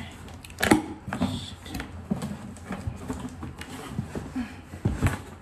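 A cardboard box being handled and its flaps pulled open, with rustling and scattered knocks; a sharp knock comes about a second in and another near the end.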